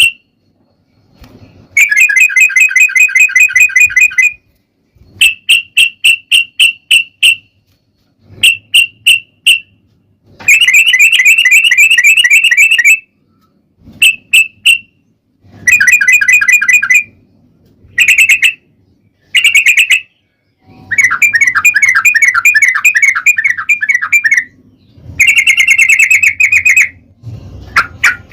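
Yellow-vented bulbul (trucukan) singing loud, rapid rolled chattering phrases of one to three seconds with short pauses between, some phrases broken into quick separate notes about four or five a second.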